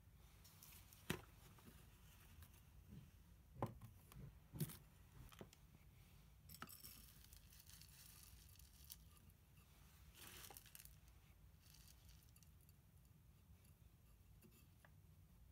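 Coarse, gritty potting mix being scooped with a plastic scoop into a terracotta pot and pressed down by hand: faint crunching and rustling of the grains, with a few sharp clicks in the first five seconds.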